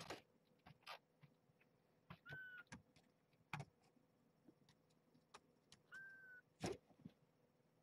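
A newborn kitten mewing faintly twice, short high steady cries about half a second long, from a kitten that has crawled out of the nest. Soft clicks and knocks come between the cries, the loudest just after the second one.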